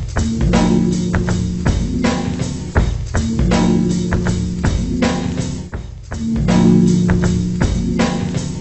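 Music with a steady drum beat and sustained guitar and bass notes.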